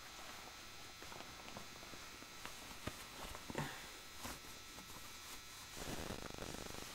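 Faint rustling of a white fabric costume hood being pulled up over a masked head and adjusted, with scattered soft clicks and taps.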